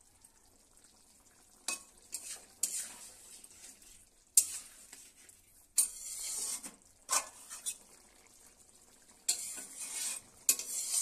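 Metal spatula stirring and scraping a cauliflower and potato curry in a metal kadai, mixing in garam masala: irregular scraping strokes starting about a second and a half in, with a sharp clink of the spatula against the pan near the middle.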